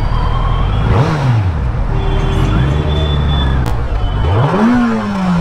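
Kawasaki Z900's inline-four engine on its stock exhaust, blipped briefly about a second in and then revved harder near the four-second mark, its pitch falling slowly as the throttle closes. In between, the engine runs steady at low revs.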